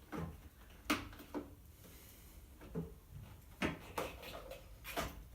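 A handful of separate sharp clicks and knocks, about six, spaced irregularly: tools being picked up and handled.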